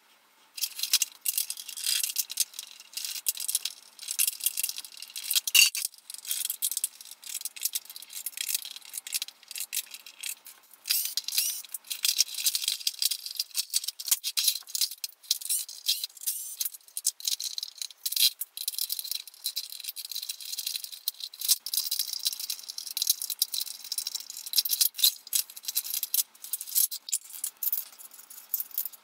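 Dense, rapid clicking and clattering of plastic vacuum-cleaner parts, screws and hand tools being handled during disassembly, sped up in a time-lapse so that it chatters continuously at a high pitch.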